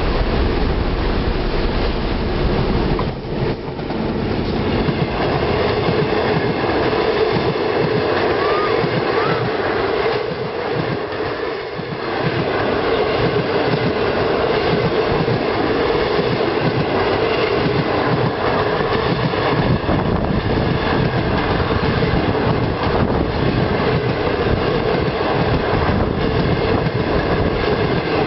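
Passenger train passing close by, hauled by a DF11 diesel locomotive, then a long line of coaches rolling past with a continuous, loud rumble of wheels on the rails.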